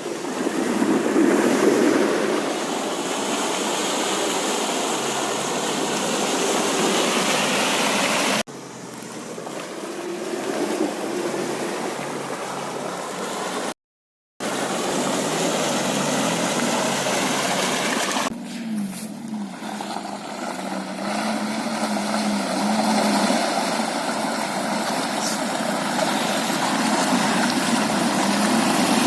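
UAZ Bukhanka van's engine running hard off-road under a loud rushing, splashing noise of the tyres churning through the ground. The engine's pitch rises and falls in the later part. The sound cuts off abruptly a few times, with a half-second gap about halfway.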